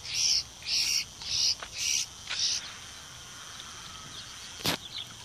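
Young sparrows chirping, about six short high calls roughly two a second, which stop after about two and a half seconds; one sharp click near the end.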